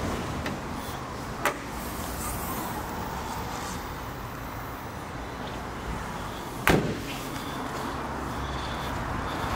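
Two sharp knocks over a steady low rumble: a light one about a second and a half in and a loud one about seven seconds in.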